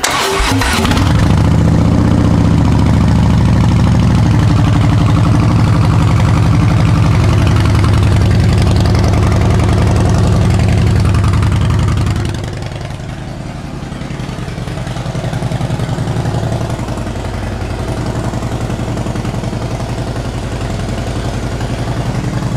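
Harley-Davidson Twin Cam V-twin of a 2015 Heritage Softail running steadily, warming up to operating temperature after an oil change. It runs louder for about the first twelve seconds, then settles to a quieter idle.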